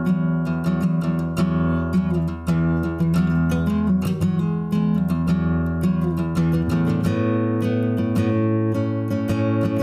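Background music: an instrumental passage with strummed acoustic guitar and a steady rhythm.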